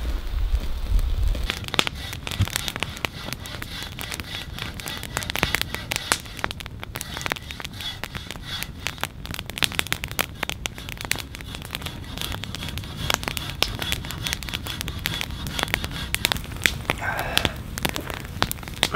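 Wood campfire crackling and popping, with irregular sharp snaps several times a second.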